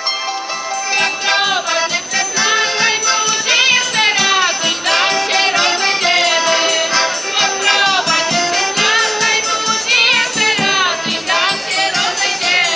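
A folk group singing a traditional song together, the voices wavering and bending in pitch, over a light, regular rattling beat.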